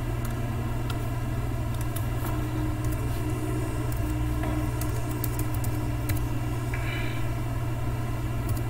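Steady low hum and hiss of background noise under a computer screen recording, with a few faint clicks.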